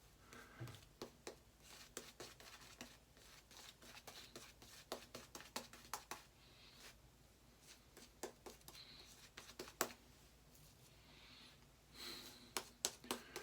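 Boar-bristle shaving brush whipping shaving cream into lather in a collapsible silicone bowl: faint, irregular wet clicks and swishes.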